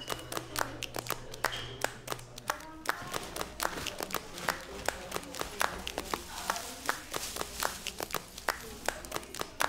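Irregular clicks, knocks and rustles of things being handled: a padlock worked on a wooden door at first, then hands rummaging through a handbag and the clothes in it.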